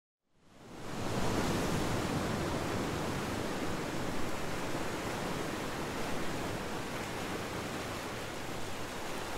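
Steady rushing of sea surf breaking on rocks, fading in over about the first second.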